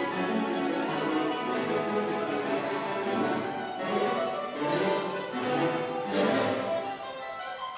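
A mandolin orchestra of mandolins, mandolas, guitars and double basses plays a classical overture, a dense texture of plucked and tremolo strings. Strong accented chords come about halfway through and twice more after, and the playing eases a little near the end.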